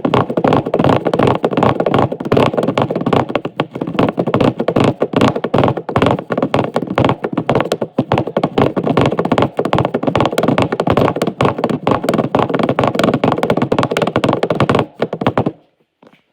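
Rapid, dense tapping and scratching on a hard surface, many clicks a second without a break, stopping abruptly near the end.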